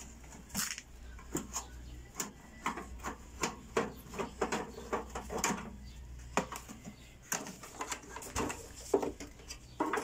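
A screwdriver working on a microwave's sheet-metal casing, making irregular small clicks, taps and scrapes.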